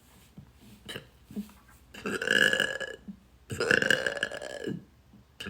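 A young woman burping: two long, loud burps about half a second apart, each lasting about a second.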